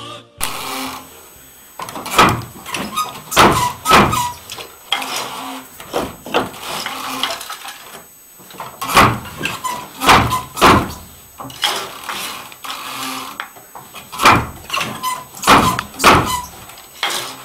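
Wooden hand loom being worked: irregular loud wooden knocks, often two or three close together, as the beater and frame are driven, with short creaks in between.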